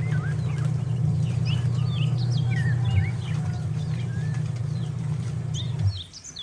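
Small birds chirping, many short calls sliding up and down in pitch, over a steady low hum that drops away about six seconds in.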